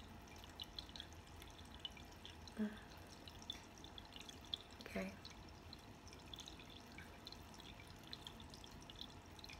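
Small tabletop water fountain trickling faintly, with many small scattered drips.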